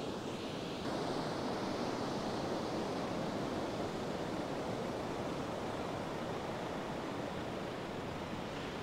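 Ocean surf washing steadily onto a beach, a continuous rushing noise that swells slightly about a second in.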